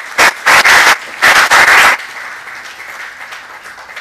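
Audience applauding in a lecture hall, loud for about two seconds and then thinning out and fading.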